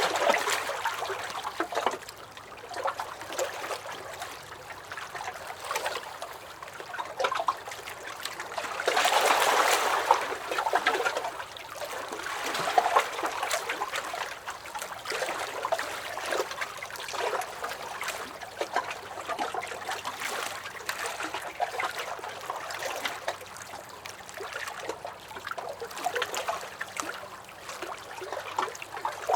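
Small lake waves lapping and splashing against a dock, in an irregular run of small slaps and trickles with a louder swell of splashing about a third of the way through.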